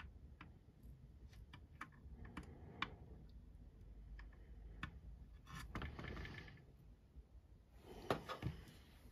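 Faint small clicks and rustling of hands handling a hard plastic toy vehicle as a small screw is turned into a pre-drilled hole in its plastic body, cutting a thread. A short rustle about halfway through and a few sharper clicks near the end.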